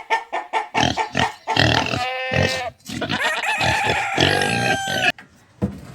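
Goats bleating, several loud calls in a row, some held for about a second, stopping about five seconds in.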